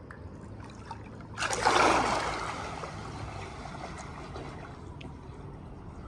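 Swimming-pool water sloshing and splashing right at the microphone, a sudden loud surge about a second and a half in that fades away over a couple of seconds, over a low steady lapping of the water.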